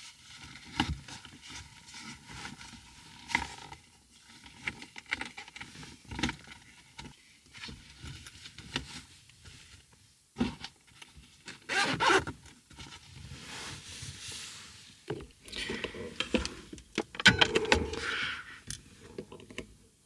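Rustling and scraping of a fabric pocket cover being pressed into place over a car's window, with scattered knocks and clicks. A louder rasping stretch comes about midway and again near the end.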